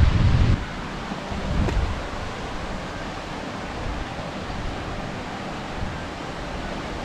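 Wind buffeting the microphone in a low rumble for about half a second, and again briefly near two seconds in, then a steady outdoor hiss.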